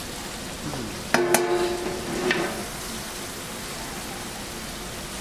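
Tomato masala frying and sizzling steadily in hot oil as chili powder is stirred in. About a second in, and again a little after two seconds, a metal utensil scrapes against the pot with a short ringing tone.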